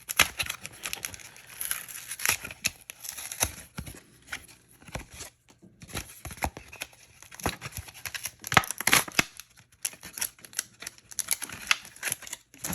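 Yu-Gi-Oh trading cards and a crinkly foil booster-pack wrapper being handled: irregular rustling, crinkling and sharp card flicks.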